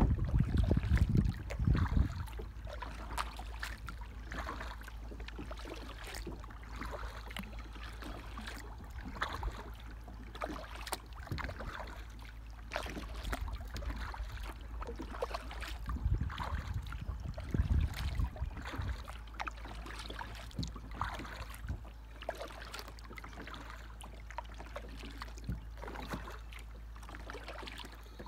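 Water lapping and dripping against a small paddle boat's hull drifting on a calm river, with many small clicks and splashes. Wind gusts rumble on the microphone in the first two seconds and again about two-thirds of the way through.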